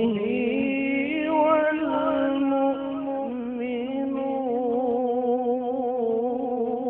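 A male Quran reciter's voice in the melodic tilawah style, drawing out long held notes that step from pitch to pitch and waver with ornaments.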